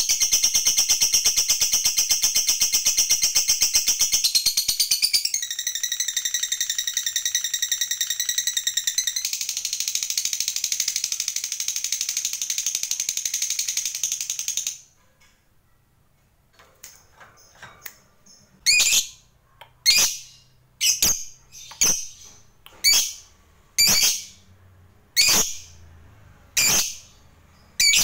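Fischer's lovebird giving a long, very fast rattling chatter (the 'ngekek' of lovebird keepers), which steps in pitch twice and cuts off suddenly about fifteen seconds in. After a short lull it gives loud, shrill single calls about once a second.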